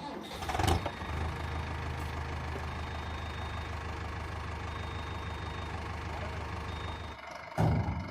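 A heavy vehicle engine idling steadily, then cutting off abruptly about seven seconds in. There is a sharp knock near the start and a loud thump just after the engine stops.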